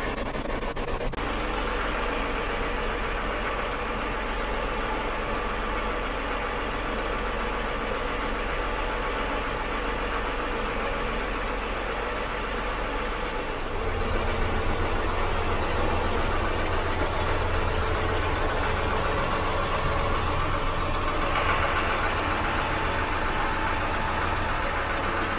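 Fish frying in hot oil in a wok, a steady sizzle, over the continuous low hum of a boat's engine. The hum gets deeper about halfway through.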